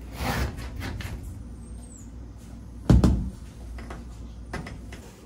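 Quarter window glass being handled and pressed by hand into a Nova's bare body opening: rustling, one heavy thump about three seconds in, and a couple of lighter knocks near the end.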